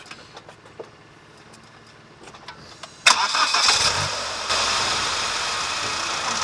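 A car engine starting suddenly about three seconds in and then running steadily; before it, only a few faint clicks.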